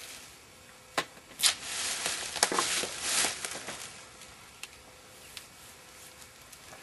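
Duct tape being pulled off the roll and torn, a rasping, scratchy noise for about two seconds, after a sharp click about a second in.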